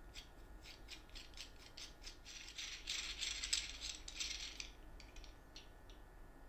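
Threaded steel rod with a plastic knob spun by hand through a metal threaded insert in a small wooden block: a quick run of light metallic clicks and rattles, densest and loudest in the middle, thinning out toward the end as the knob seats.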